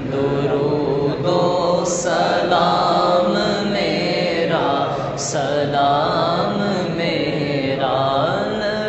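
Men and boys chanting a durood-o-salam naat (salutation to the Prophet) together, a melodic recitation with long held notes that glide in pitch.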